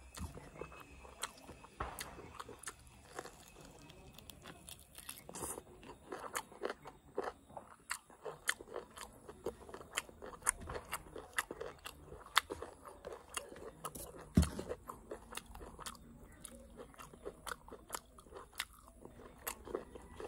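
A person chewing and eating mutton curry with rice by hand: irregular wet smacks and crunches, a few a second, with one louder crunch about two-thirds of the way through.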